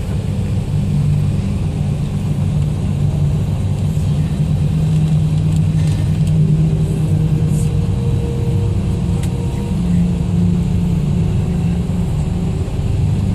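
Motor vehicle engine and road rumble, a loud steady low drone heard from a moving vehicle; the engine note rises slightly about ten seconds in.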